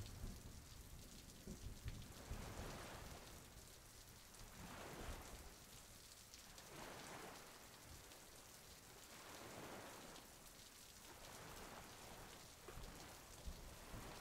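Near silence, with the faint scratchy hiss of a swivel knife cutting into damp leather, swelling softly with each stroke every couple of seconds.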